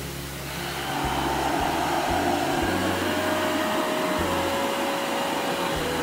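eufy RoboVac 11S robot vacuum running on a tile floor: a steady whirring hiss of its suction motor and brushes that gets louder about a second in. Soft background music plays underneath.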